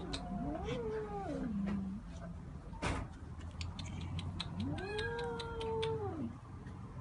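A domestic cat meowing twice in long, drawn-out calls, each rising and then falling in pitch. A sharp click comes between the two calls, about three seconds in.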